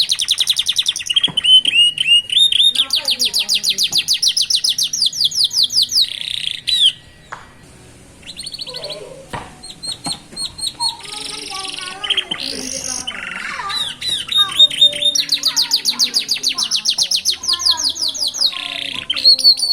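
Young canaries singing: fast rolls of repeated high sweeping notes. The rolls break off about seven seconds in for softer, scattered notes and calls, and resume about fourteen seconds in.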